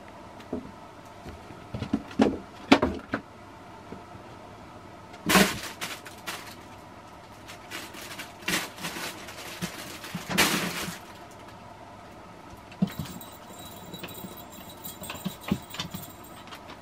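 A cat playing with a fabric play tunnel: irregular bursts of rustling and crinkling with light knocks on the floor, loudest about five seconds in and again around ten seconds in.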